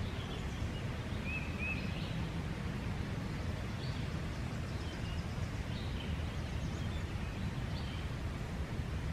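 Faint wild bird chirps, a few short scattered calls including a quick pair of notes, over a steady low outdoor rumble.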